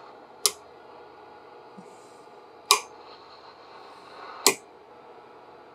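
Three sharp clicks about two seconds apart, from the front-panel switches of a Palomar TX100 CB linear amplifier being flipped, over a faint steady hum.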